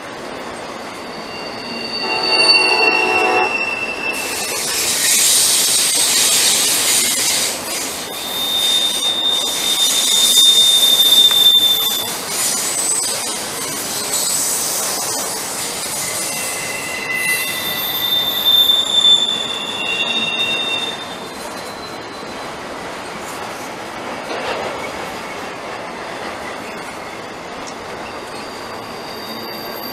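Union Pacific intermodal freight train rolling by, its wheels squealing against the rail. Several high-pitched squeals come and go over the steady rumble of the cars, the longest held for about four seconds.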